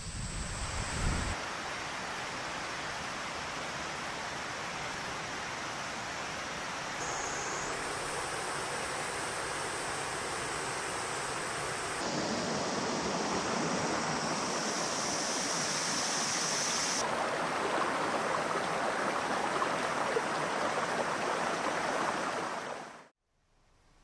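Steady rushing outdoor ambience with no distinct events, in spliced stretches that step up in level about twelve seconds in and fade out about a second before the end.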